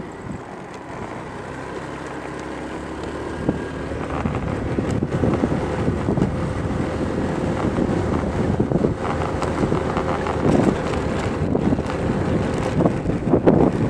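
Wind buffeting a phone's microphone while riding along a street, with the rumble of the moving ride underneath; it grows louder over the first few seconds, then holds with small gusts.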